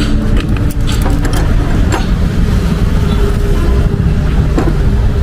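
An engine running steadily with a low rumble, and a few light metallic clicks in the first two seconds.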